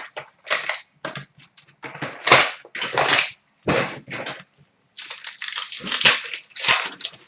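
Plastic wrapping on hockey card boxes and packs being torn open and crinkled by hand: an irregular run of short, sharp crackles and rips.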